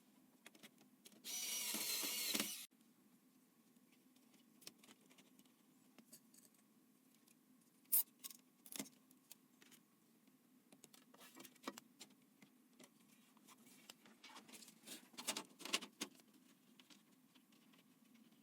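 Computer hardware being handled during assembly: a harsh scraping or rasping sound for about a second and a half near the start, then scattered light clicks, taps and small rattles of metal and plastic parts, busier in the second half.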